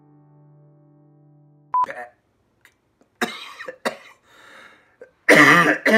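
Quiet end-screen music that stops about two seconds in, cut by a short high beep, followed by men's voices in short outbursts, the loudest near the end.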